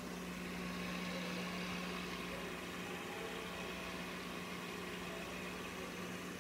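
Steady electric hum of an aquarium pump running, with the even fizzing hiss of air bubbles rising through the tank water.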